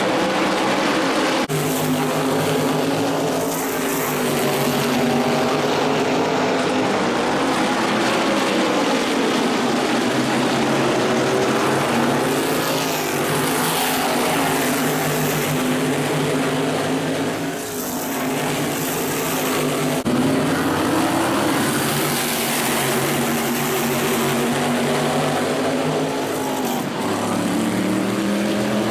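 Modified race cars' V8 engines running hard in a pack around a short oval, their pitch rising and falling as cars pass. The sound jumps abruptly a few times.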